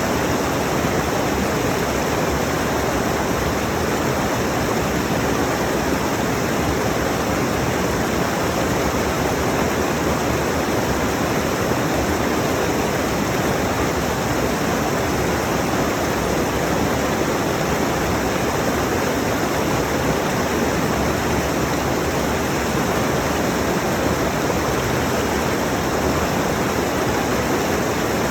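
Mountain stream rushing over rocks: a steady, unbroken roar of water.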